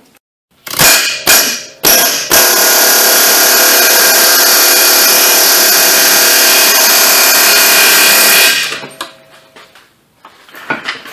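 Pneumatic air hammer with a long chisel bit cutting off a strut bolt. It gives three short bursts of rapid hammering, then one loud steady run of about six seconds before it stops.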